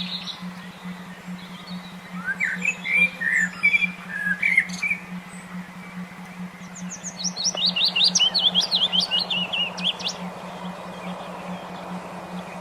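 Songbird song: a burst of varied chirps about two seconds in, then a fast run of high chirps from about seven to ten seconds, over a steady low hum.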